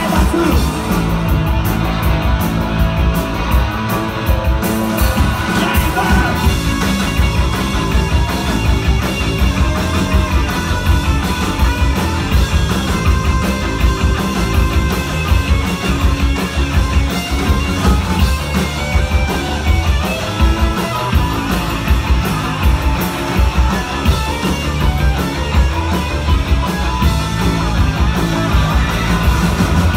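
Rock band playing live with electric guitars and drums, loud and without a break.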